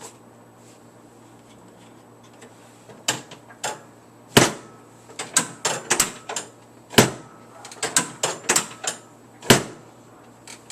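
Thompson drop-table chiropractic table clanging as its drop sections fall. There are three loud clacks a couple of seconds apart, with quicker, lighter clicks and knocks between them, starting about three seconds in. The noise comes from the table's mechanism, not from the patient's spine.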